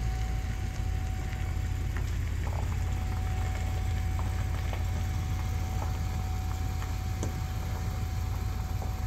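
An engine idling steadily: a low rumble with a faint steady whine above it and a few scattered light clicks.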